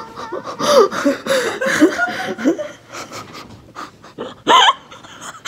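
A woman laughing through tears in breathy, panting gasps, with a loud, high-pitched squealing laugh about four and a half seconds in.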